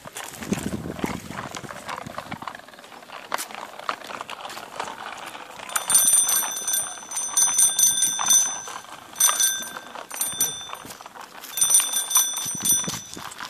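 Children's bicycle handlebar bell rung in rapid trills: five bursts starting about six seconds in, the longest over a second each. Before them, light clicking and rattling from the little bike rolling on asphalt.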